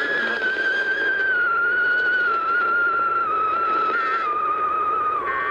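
Static from a weak, distant AM radio station with a loud whistling interference tone that slides slowly down in pitch. The whistle is a heterodyne: another station's carrier beating against the faint signal.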